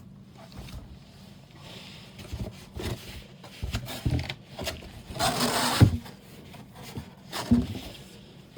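Handling and rummaging through a cardboard shoe box: scattered knocks and rustling, with a louder rustle about five seconds in.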